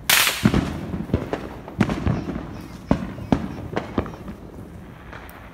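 Consumer fireworks going off: a loud bang with a hissing crackle right at the start, then about a dozen irregular bangs and pops of varying loudness over the next five seconds.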